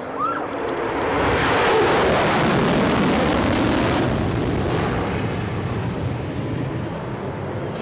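Lockheed SR-71 Blackbird's two Pratt & Whitney J58 jet engines passing overhead in a low flyby: the jet noise swells about a second in, is loudest for a few seconds, then fades as the aircraft moves away.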